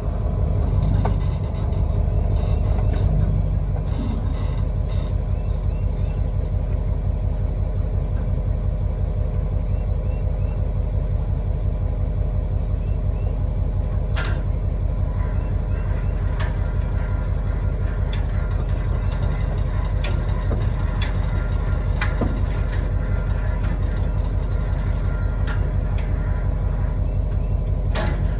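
A diesel engine of a farm vehicle running steadily under a constant low rumble, with scattered sharp clicks and rattles.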